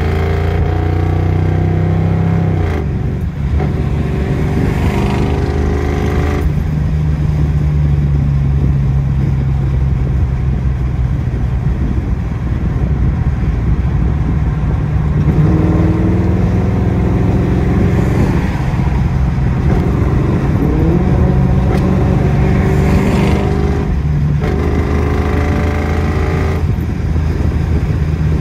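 Fox-body Mustang GT's 5.0 V8, with a BBK off-road H-pipe and Magnaflow cat-back exhaust, pulling hard through the gears, heard from inside the open car. The note drops sharply about three seconds in and climbs again in the second half.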